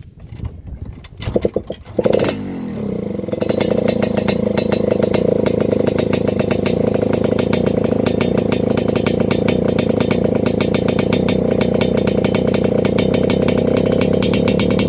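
Yamaha RX-King's 135 cc single-cylinder two-stroke engine being kick-started: a few knocks, then it catches about two seconds in, its revs fall away and it settles into a steady, rapid-firing idle. The carburettor is set rich ('stel basah') for the rough, snoring 'ngorok' idle.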